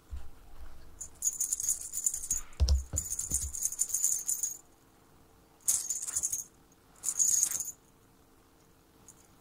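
A small rattle jingles in four short bursts, shaken and then still, with a few dull thumps around three seconds in.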